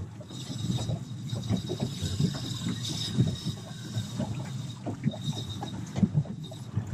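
Wind on the microphone and waves slapping the hull of a small boat rocking at anchor, with uneven thuds and a faint high whine that comes and goes.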